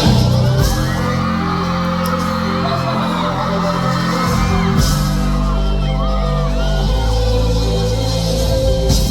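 A live band plays loudly with held, changing bass notes and drum hits, while audience members whoop and scream over the music.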